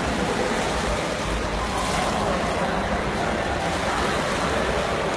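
Steady rushing water noise from a swimming pool, with a low rumble underneath.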